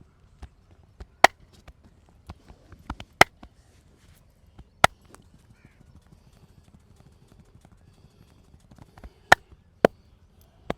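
Massage percussion: a run of sharp hand strikes on the body at irregular intervals, five loud cracking slaps among a few quieter taps, with a pause of several seconds in the middle.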